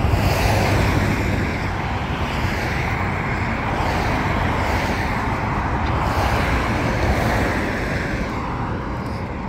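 Road traffic on a multi-lane street: a steady rush of passing cars' tyre and engine noise, easing slightly near the end.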